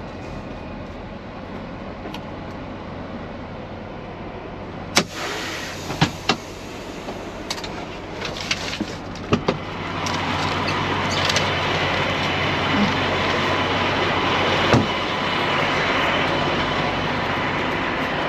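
Semi-truck diesel engine idling with a steady low hum. A few sharp clicks and knocks come between about five and nine and a half seconds in, and from about ten seconds in the sound is louder and fuller.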